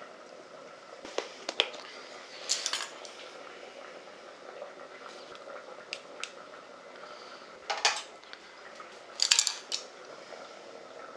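Utensils tapping and clinking against ceramic bowls and cookware in several separate short clusters, as toppings are placed into bowls of bibimbap.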